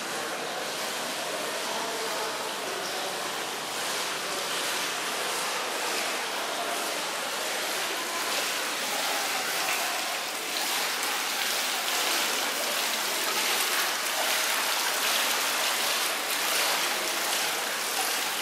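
Small tiered fountain splashing steadily into its basin.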